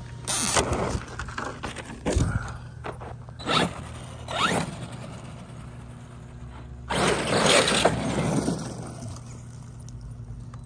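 Electric RC monster truck driving on dirt in short bursts of throttle, its motor whining up in pitch as it speeds up, with the tyres scrabbling in the dirt. The longest and loudest burst comes about seven seconds in.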